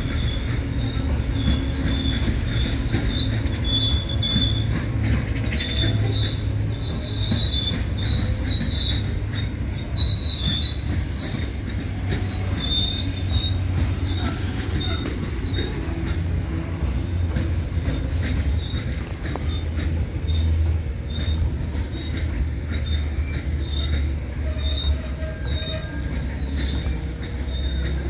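Loaded ballast hopper wagons of a freight train rolling slowly past, with a continuous low rumble and a high, wavering squeal from the wheels that comes and goes. A single sharp knock about ten seconds in.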